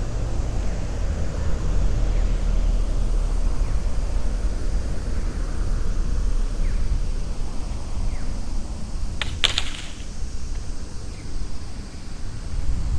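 Steady low rumble of city street traffic, with a sharp double click about nine and a half seconds in.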